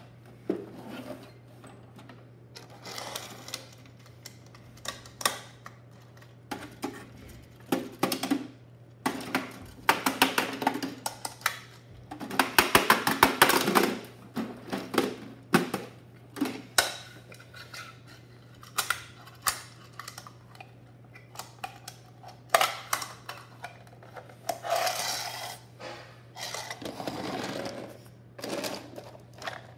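Plastic Bruder toy garbage trucks being worked by hand on a wooden floor: irregular clicks, knocks and clatter of plastic parts as a front-loader's forks lift a toy dumpster, with a denser burst of rattling about halfway through. A steady low hum runs underneath.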